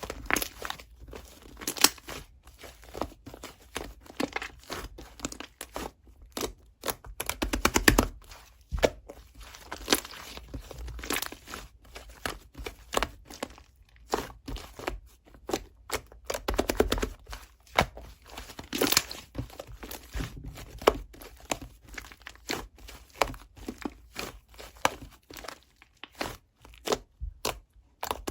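Irregular crinkling and crackling with many sharp little clicks and taps: something being handled and rustled.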